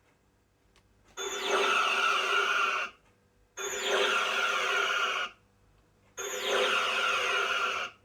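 A sound module in a lighted starship model plays a Star Trek weapon-firing sound effect three times, each shot about a second and a half long, opening with a falling whine and ending abruptly.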